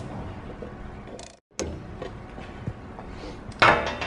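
Ratcheting clicks of a torque wrench tightening a lawn mower's blade bolt, then a louder clatter near the end.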